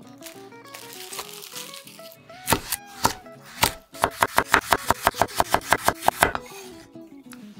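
Plastic wrap crinkling, then a kitchen knife slicing a carrot on a wooden cutting board: a few separate cuts, then a quick even run of chops, about six a second, stopping a little after six seconds in. Soft background music plays throughout.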